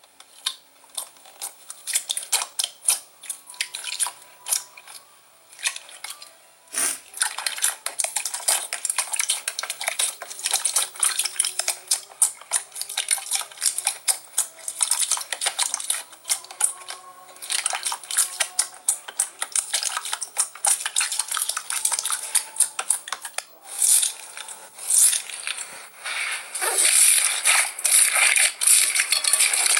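Slime being squeezed and worked by hand, making a dense run of crackling, popping clicks that grow thicker and louder near the end.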